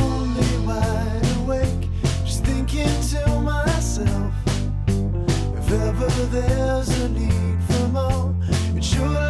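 Background music: a rock song with drums keeping a steady beat, bass and a melodic lead that may be singing.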